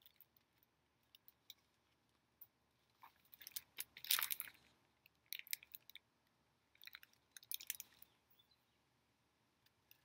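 A hardcover picture book being handled: its pages and cover crinkling and rustling in short bursts, with scattered light clicks. The loudest bursts come about three to five seconds in and again around seven to eight seconds.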